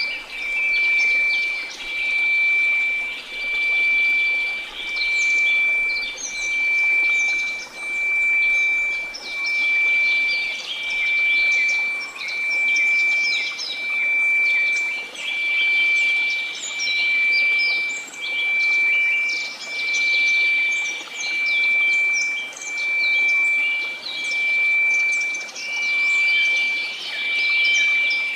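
A steady high pure tone of about 2334 Hz, swelling and fading evenly about every one and a half seconds, over a faint hiss of white noise, with small birds chirping throughout.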